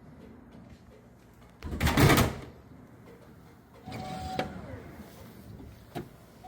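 Vending machine dispensing a bottle: one loud thud about two seconds in, then quieter mechanical rattling with a short electronic beep.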